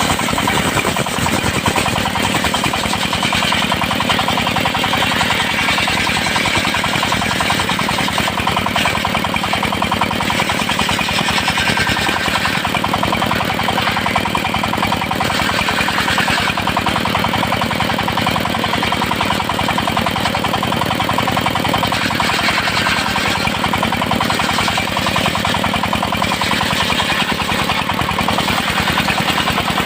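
Engine-driven circular sawmill running steadily, sawing teak into boards, with a rapid even chugging from the engine.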